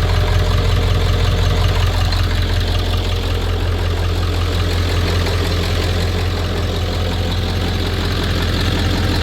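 Ford F-250 pickup engine idling, a steady low rumble with an even pulse.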